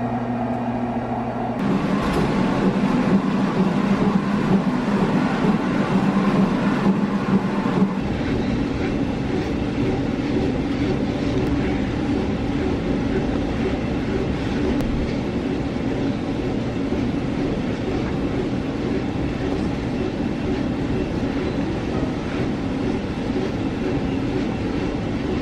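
Treadmill running: a steady mechanical drone from its motor and belt, changing about two seconds in and again about eight seconds in.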